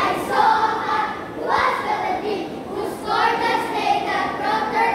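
A group of children chanting a verse together in a sing-song voice, in a few drawn-out phrases.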